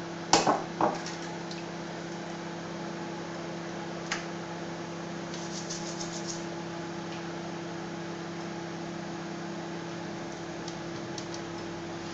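A DeLonghi microwave oven runs with a steady hum while it heats margarine in a cup. A few sharp knocks come in the first second, a single click about four seconds in, and a short run of faint ticks around six seconds.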